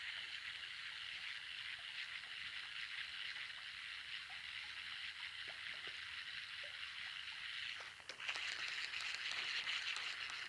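Baitcasting reel being cranked on a lure retrieve: a steady whirring of the reel's gears, with a brief break about eight seconds in before the cranking resumes.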